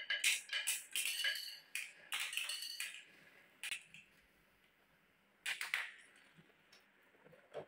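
Small marbles rolling down a wooden zigzag marble-run track and dropping into a toy truck's bed, a dense clatter of clicks and clinks for about the first three seconds. A short rattle of clicks comes about five and a half seconds in, as the loaded truck is handled.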